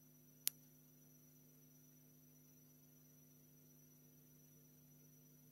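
Near silence: room tone with a steady low electrical hum and a faint high whine, broken by a single sharp click about half a second in.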